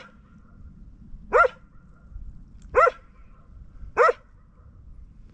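A dog barking at a person walking in snowshoes, which unsettle it: four single barks, evenly spaced about one and a half seconds apart.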